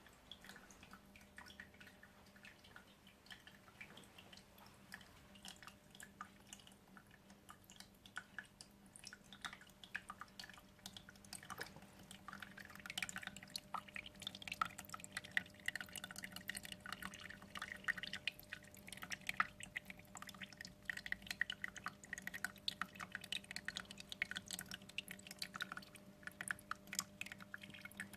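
Small vivarium waterfall trickling and dripping into its pond, faint. At first there are only scattered drips, then from about halfway in there is a denser, irregular patter of drops and splashes over a faint steady hum.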